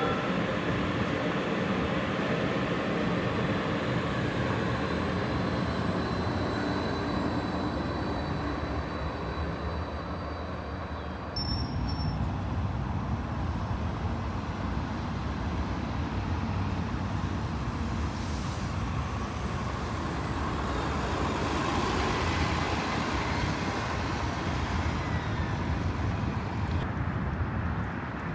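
A light rail train passing close by, its wheels and motors running with a faint high steady whine. About eleven seconds in, the sound cuts to a city bus and road traffic running.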